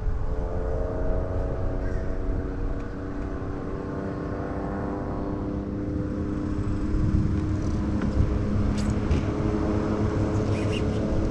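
Motorboat engine droning as it passes, its pitch sinking slowly and then holding steady, over a low rumble of wind and water.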